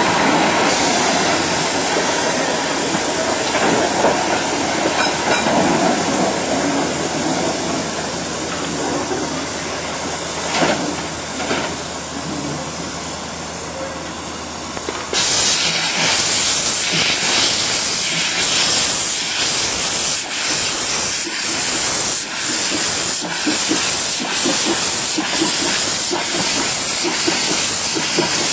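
Industrial steam saddle-tank locomotive working in the yard. For the first half there is a steady rumble. About halfway in, loud hissing breaks in and beats evenly, a little over once a second: the exhaust chuffs of the engine getting under way with its cylinder drain cocks open.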